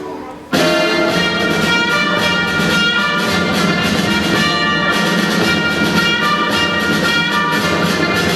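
Orchestral accompaniment with brass comes in suddenly about half a second in, after the choir's previous phrase fades, and plays on as an instrumental passage without singing.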